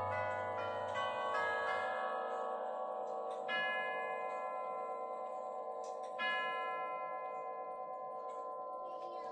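Clock chime rods or bells: a few quick notes at the start, then two single strokes about three seconds apart, each left ringing and slowly fading.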